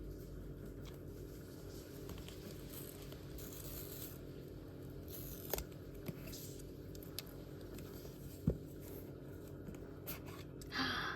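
New phone's packaging being opened and handled: faint scattered clicks, scrapes and rustles of cardboard and plastic, with a short tearing or rustling burst near the end.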